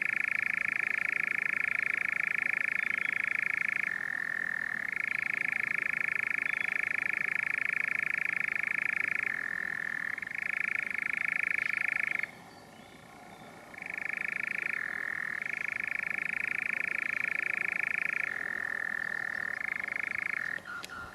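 European nightjar churring: a long, continuous purring trill that switches back and forth between a higher and a lower pitch every few seconds, with one pause of about a second and a half past the middle.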